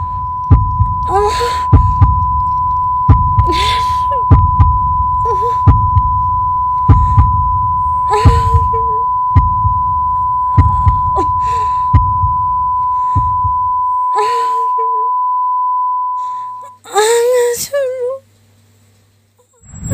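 Dramatic sound effects of a slow heartbeat thumping about once every 1.3 seconds under a steady high-pitched ringing tone, with strained gasping breaths between the beats. The heartbeat stops about 14 seconds in, and the ringing cuts off a few seconds later.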